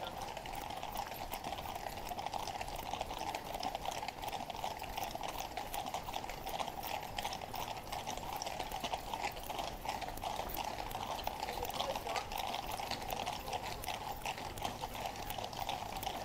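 Shod hooves of a column of cavalry horses clattering on the road at a fast pace: a dense, irregular patter of clip-clops. Under it runs a steady rushing noise.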